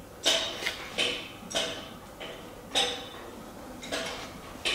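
Footsteps on a hard workshop floor: about seven sharp taps at a steady walking pace, each with a short light clink.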